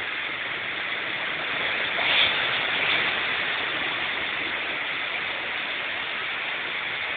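Heavy downpour: a steady hiss of rain with floodwater running over the street, swelling briefly louder about two seconds in.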